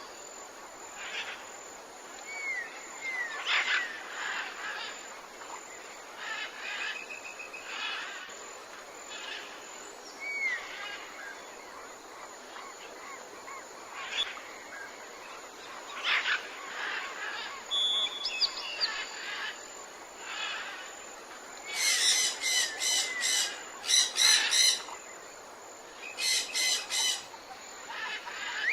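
Mixed tropical forest birds calling: scattered chirps and short falling whistles, then a loud burst of rapid, harsh repeated calls about two thirds of the way in.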